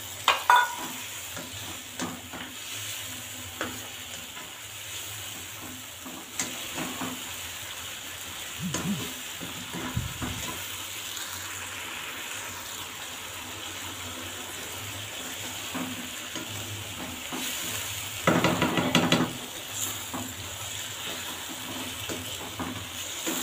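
Chicken pieces frying in a wok of spiced yogurt masala, sizzling steadily, while a slotted spatula stirs them and knocks and scrapes against the pan. This is the bhuna stage, where the chicken is fried until its moisture cooks off and the ghee separates. The stirring grows louder for a second or so about 18 seconds in.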